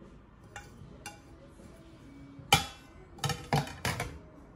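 A Corelle dinner plate of laminated Vitrelle glass being set down on a hard tabletop: one sharp clink with a brief ring a little past halfway, then three or four smaller clinks close together as it is shifted into place. Two faint clicks of handling come before it.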